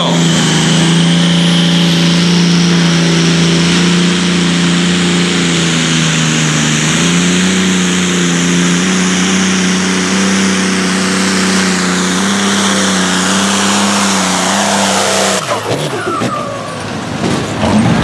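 Challenger pulling tractor's engine held at high revs under load during a pull: a loud, steady drone that steps up in pitch about halfway through and cuts off abruptly about three seconds before the end.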